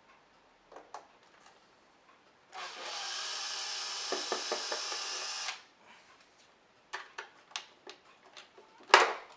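Power screwdriver running steadily for about three seconds, backing out a screw that holds the vacuum cleaner's base. A few light clicks follow, then a sharp knock near the end as the screw or base is handled.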